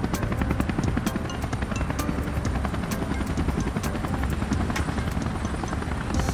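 Helicopter rotor sound effect: a steady, evenly pulsing rotor chop of a hovering helicopter, with background music underneath.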